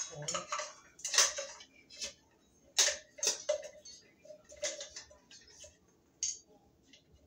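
Irregular light clicks and clinks of metal and plastic ceiling fan parts being handled, as wires are fed through the downrod fitting on the motor housing and its pin is worked back in.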